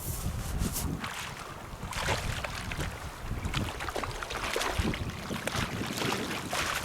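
Wind buffeting the microphone in uneven gusts, over water washing and splashing.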